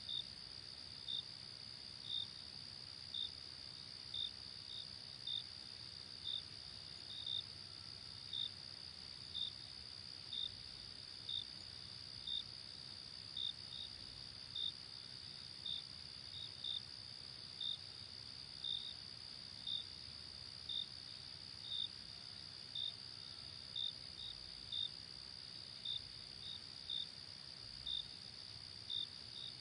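Crickets chirping: a steady high trill from many crickets, with a louder chirp over it about once a second, sometimes doubled.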